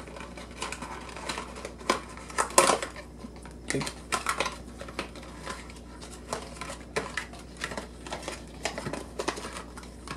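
Cardboard and plastic packaging being handled: irregular clicks, taps and scrapes as a colorimeter and its USB cable are worked out of a folded cardboard sleeve, with a sharper clack about two and a half seconds in.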